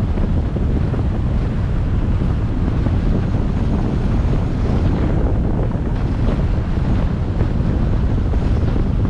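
Steady wind noise on the microphone of a moving car, a low rumble with road and tyre noise mixed in.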